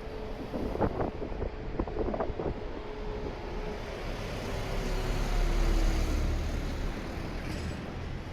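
Street traffic with a road vehicle passing close by, loudest about five to six seconds in, its hum dropping slightly in pitch as it goes past. A few short knocks or rattles come in the first couple of seconds.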